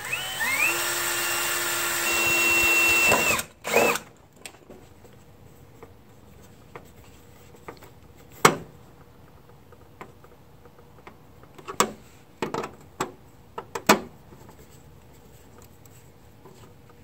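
Yellow-and-black cordless drill/driver spinning up and running for about three seconds with a steady whine, driving a sheet metal screw, then a short second burst. After that, scattered light clicks and taps.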